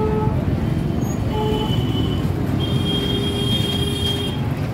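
Steady street traffic rumble with vehicle horns: a short honk at the start, another about a second and a half in, then a longer horn held for nearly two seconds.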